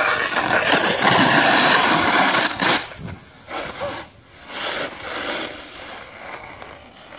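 Snowboard sliding and scraping over icy snow as the rider drops in, loud and close for about the first three seconds, then fainter, broken scraping as the board carves away down the slope.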